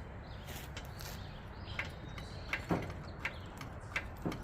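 A jack being worked to lift the side of a pickup truck: a few irregular metallic clicks and knocks, several seconds apart, over a steady low background.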